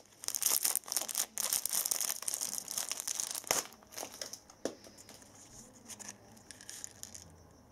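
Crinkling and tearing of the foil-lined wrapper of a Nerds Rope candy being peeled open, busiest over the first few seconds, then a few sharp clicks and quieter rustling.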